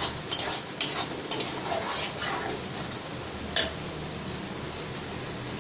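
Steel spatula scraping and tapping against a kadai while stirring thick masala paste: a string of quick clicks over the first two seconds or so, and one sharper knock about three and a half seconds in. The paste is frying with a steady low hiss underneath.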